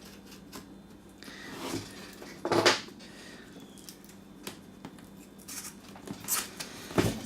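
Unboxing noises as the compressor and its packaging are handled: scattered rustles and clicks, with a louder rustle building to a sharp knock about two and a half seconds in and another knock near the end.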